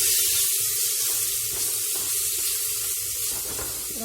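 Coarsely ground spice paste of garlic, shallots, dried red chillies and cumin sizzling in hot oil in a kadai, a steady hiss that fades slightly. It is being sautéed until its raw smell is gone.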